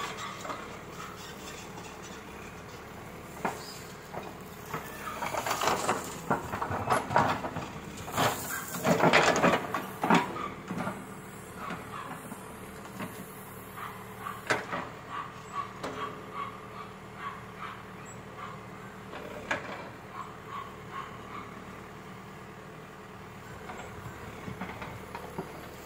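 CAT backhoe loader's diesel engine running steadily while the backhoe digs soil. About five to eleven seconds in, a louder stretch of scraping and crunching as the bucket works through the soil and tree branches, then scattered single knocks.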